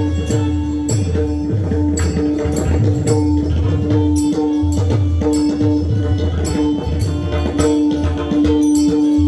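Instrumental passage of devotional music with no singing: held, steady notes over a regular rhythm of deep drum strokes and sharp, ringing metal percussion strokes.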